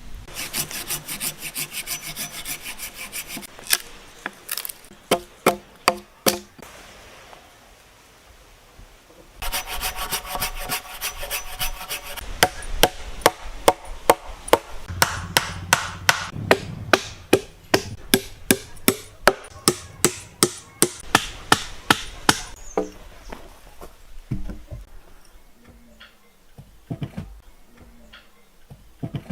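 Wood being worked with hand tools: quick runs of hand-saw strokes, and between them sharp strikes on wood, with a long steady run of about two strikes a second in the middle and softer scattered knocks near the end.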